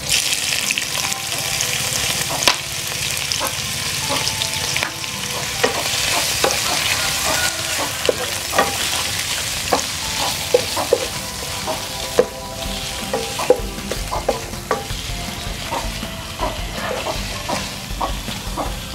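Raw shell-on shrimp sizzling steadily in hot oil with chopped garlic in a frying pan, the sizzle jumping up as they go in at the start. Frequent short pops and clicks from the spitting oil and the stirring run through it.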